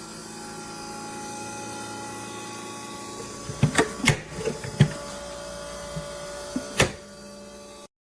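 Small portable compressor fridge running with a steady mechanical hum, with several sharp knocks and clicks in the second half. The hum stops abruptly near the end.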